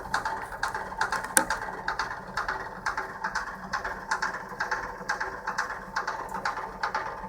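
The built-in circulation pump of a 2007 Vaillant atmoTEC pro 240/3-3 gas boiler knocking with a rapid, uneven clicking rattle several times a second, with one sharper click about a second and a half in. The pump has failed; its decline showed first as frequent shutdowns with error code F75.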